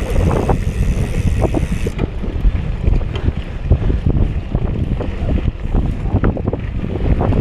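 Mountain bike riding down a dirt trail: wind buffets the microphone over the rumble of the tyres, with frequent small knocks and rattles from the bike over the rough ground.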